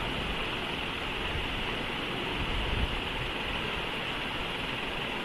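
Steady background hiss with a low rumble underneath, even and unchanging, with no distinct events.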